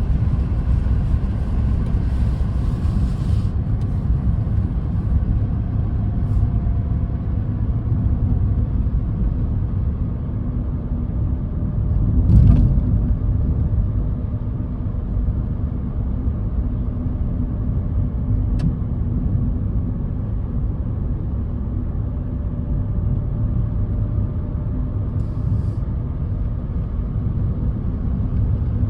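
Car driving along a road: a steady low rumble of road and engine noise, with a louder bump about twelve seconds in.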